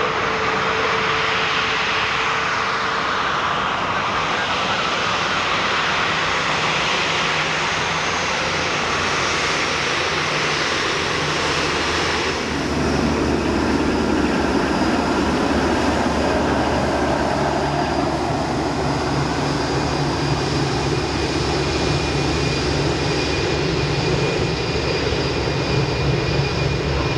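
Boeing 787-9 Dreamliner's jet engines running at taxi power: a steady rush with a faint whine. About halfway through, the sound grows fuller in the low range and slightly louder.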